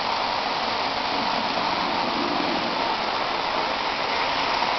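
Lionel 681 O-gauge turbine locomotive pulling boxcars around the track, making a steady rushing noise.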